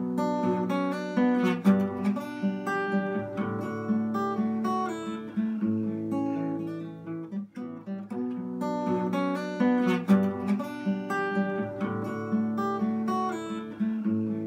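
Acoustic guitar playing a slow, lyrical tune of plucked notes and strummed chords, with a short break about halfway through where the phrase starts over.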